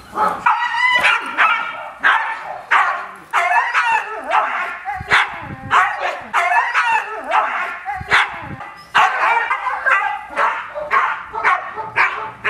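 Guard dogs barking aggressively in rapid, repeated barks, about two a second, at men provoking them during aggression training.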